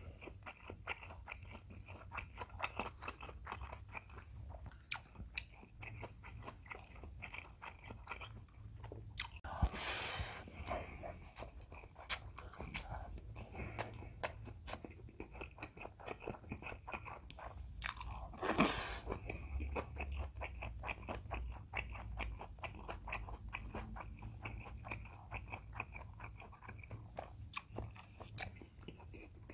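A person chewing mouthfuls of rice and tofu from doenjang stew, a steady run of small wet mouth clicks and crunches, with two louder brief hissing sounds about a third and about two thirds of the way through.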